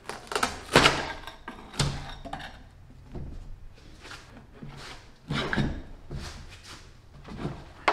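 Putty knife scraping and knocking under the edge of a fiberglass form half as it is pried loose from its waxed base board: a dozen or so short, irregular knocks and scrapes.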